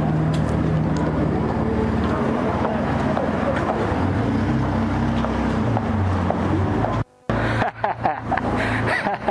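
Street noise: a steady vehicle engine hum with traffic and passers-by. About seven seconds in, the sound cuts out abruptly for a moment and then comes back choppy.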